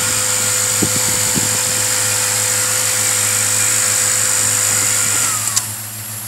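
Air-conditioning blower fan running with a steady whine and rush of air, then winding down in pitch and stopping with a click about five and a half seconds in.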